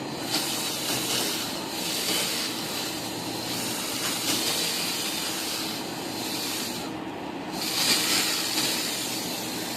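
Electric nail file (e-file) grinding down acrylic nails, a steady hissing that breaks off briefly about seven seconds in and then resumes.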